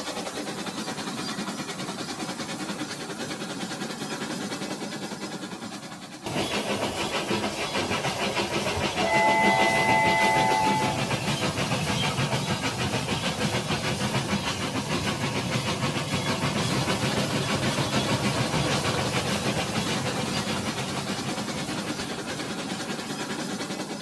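Battery-powered Rail King toy train running on plastic track, its small motor and wheels making a steady rattling whir that gets louder after about six seconds. About nine seconds in, the toy's whistle sounds once for about two seconds.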